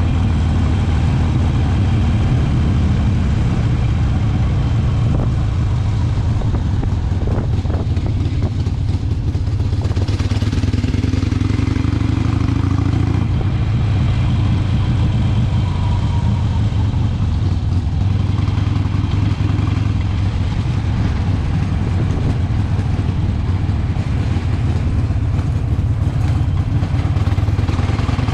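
Harley-Davidson V-twin engine running with a steady low rumble while the motorcycle is ridden, with road noise around it.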